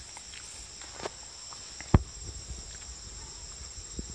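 A steady, high-pitched chorus of forest insects chirring on two even tones, with one sharp click about two seconds in and a few soft knocks.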